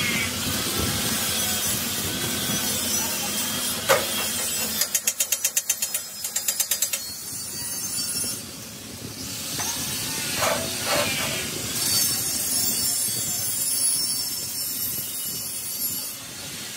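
Stick (arc) welding on a rolled steel wheel rim band: the welding arc's steady crackling hiss, broken a few seconds in by a quick run of sharp taps.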